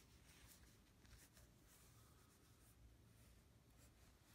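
Faint, irregular rubbing of a microfiber cloth wiping the metal rear mount rim of a camera lens.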